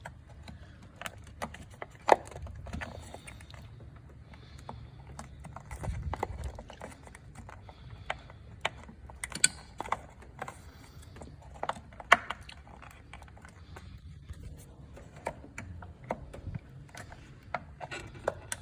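Plastic trim panel being worked and pried off by hand: irregular clicks and snaps of its clips, with plastic rubbing and scraping.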